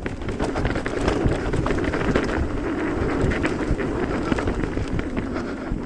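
Mountain bike riding down a dirt trail: tyres rolling over rough ground, with a constant run of small knocks and rattles from the bike and wind noise on the microphone.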